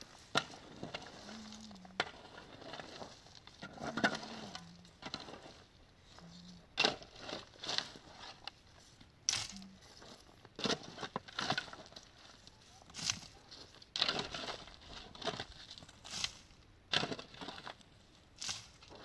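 Irregular crunching and scraping strokes, about one or two a second with short pauses between them.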